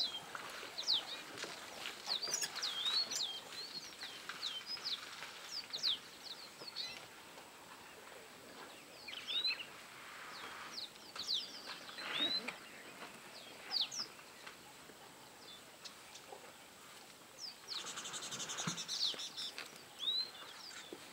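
Wild birds chirping, with many short rising and falling calls in quick succession. A few brief rushes of soft noise come in around the middle and again near the end.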